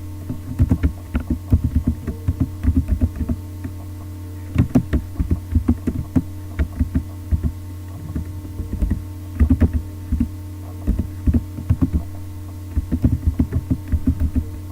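Computer keyboard typing in short irregular runs of keystrokes, over a steady low electrical hum.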